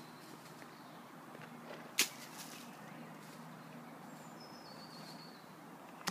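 Quiet outdoor ambience with one sharp click about two seconds in, and a thin bird call that steps down in pitch a little after four seconds.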